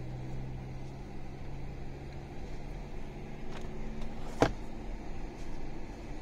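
Steady engine and road noise heard inside a moving car's cabin. The low engine hum eases a little after three seconds in, and a single sharp click sounds about four and a half seconds in.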